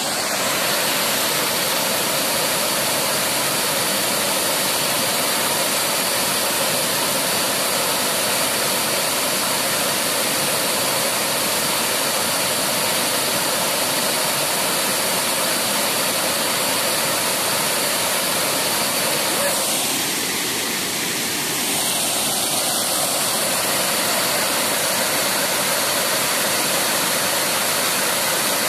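Water pouring over a small weir into a pool: a loud, steady rushing close to the microphone, a little softer for a moment about two-thirds of the way through.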